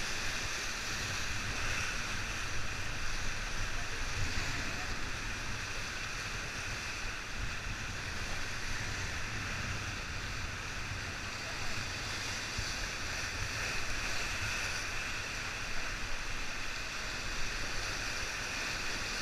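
Whitewater river rapids: a steady rush of churning water around an inflatable raft, with a low rumble underneath.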